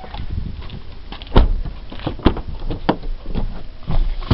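Door of an Isuzu D-Max pickup cab being opened and shut, heard as two sharp knocks about a second apart, followed by several lighter bumps and rustling as someone moves into the back.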